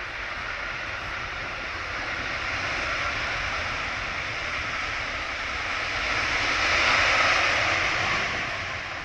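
Boeing 747 freighter's jet engines roaring as it rolls out along the runway after landing. The roar grows louder to a peak about seven seconds in, then eases off.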